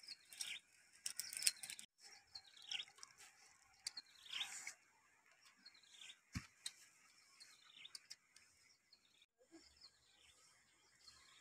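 Birds calling in the background with short, repeated downward-sweeping chirps. A few sharp clicks come in the first second and a half, and there is a single low thump about six seconds in.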